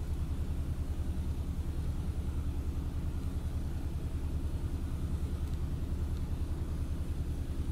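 A steady low rumble with no change in level throughout.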